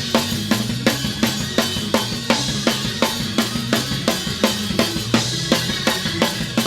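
Up-tempo gospel praise-break music driven by a drum kit: fast, even snare and bass drum hits with cymbals over a bass line.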